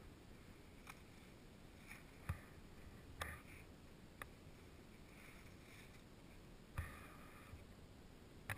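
Near silence with a faint hiss, broken by about six scattered short clicks and soft knocks, the loudest with a low thud, around two seconds in and again near seven seconds.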